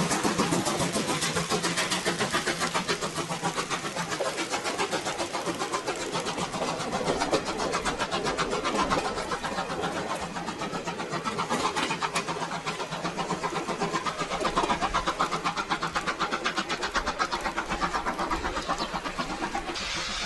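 Steam locomotive exhaust chuffs in a fast, even rhythm: the draft sound of a locomotive working steadily. A hiss of steam comes in near the end.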